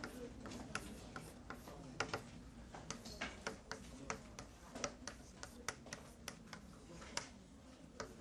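Chalk writing on a blackboard: a run of sharp, irregular clicks and taps as numbers and commas are struck onto the board.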